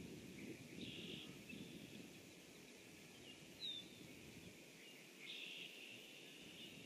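Faint wetland ambience: a steady distant high-pitched calling of wildlife with a low rumble beneath, and one short bird chirp about three and a half seconds in.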